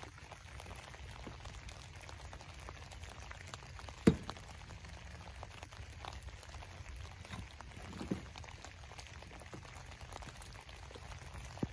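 A shovel scooping and dumping soil from a wheelbarrow: a loud knock about four seconds in, a smaller one near eight seconds and another at the very end, over steady faint crackling of moving soil.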